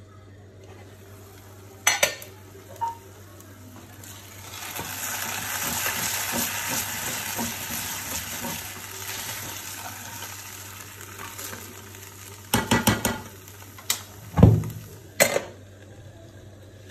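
Vermicelli sizzling in an aluminium pot as it is stirred with a spoon. There are sharp metal clanks from the lid and spoon on the pot about two seconds in, and a quick run of clanks near the end as the lid goes back on.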